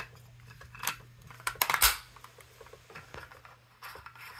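Light clicks and taps of hard 3D-printed plastic cable-cover pieces being handled and fitted into a cable hole, a few scattered knocks with the loudest near the middle.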